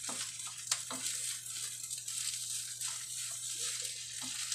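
Wooden spatula stirring and scraping fried rice with egg in a frying pan, with irregular scrapes and clicks against the pan over a steady sizzle; one sharper click about a second in.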